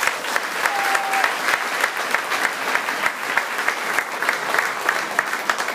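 An audience applauding in a hall, with single claps from someone close by standing out sharply above the general clapping.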